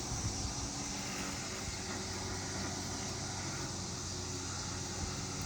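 Steady outdoor background: a constant high insect drone with a low, even mechanical hum beneath it.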